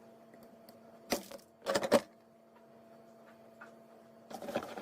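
Wire cutter snipping through the straightened ends of the Ethernet cable's eight wires: one sharp click about a second in, then two more close together just before two seconds. Rustling handling noise starts near the end.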